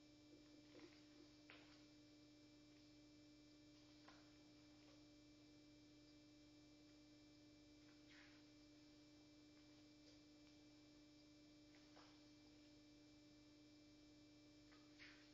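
Near silence: a faint steady electrical hum with a few soft, scattered clicks.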